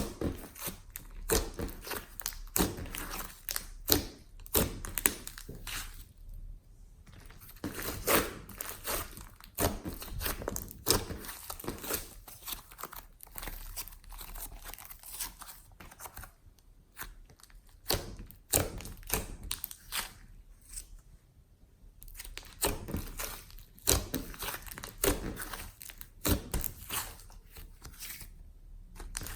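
Glossy slime with flower clay being kneaded, stretched and pressed by hand, giving off irregular sticky pops, clicks and crackles with short quieter pauses between them.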